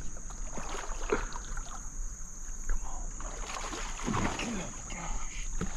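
Water splashing and sloshing beside a kayak as a hooked fish is fought up to the boat.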